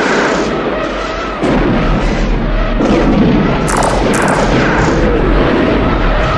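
Space-battle sound effects for the Gunstar starfighter: weapons fire and explosions over a dense rumble, with zaps that fall in pitch. A deep rumble comes in suddenly about a second and a half in, and two sharp cracks come close together a little past the middle.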